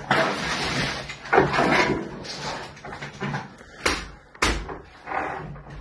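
Clatter and rustle of gear being handled, with two sharp knocks a little over half a second apart about four seconds in; no gunfire.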